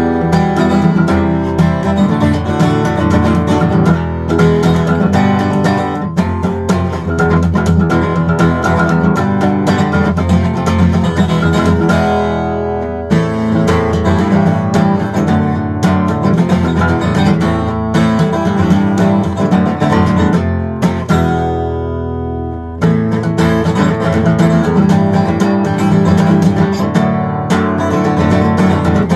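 Gibson SJ-200 jumbo flat-top acoustic guitar played solo, with picked notes and strummed chords. Twice, about halfway and again a little later, the playing eases for a moment and a chord rings on.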